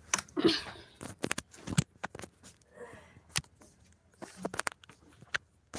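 Irregular clicks and knocks, the handling noise of a phone being held and moved about in the hand.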